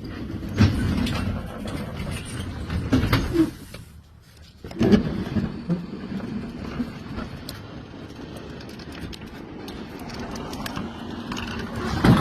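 Garage door and its opener running: a rumbling, rattling mechanical sound with a few knocks, and a steady hum from about five seconds in.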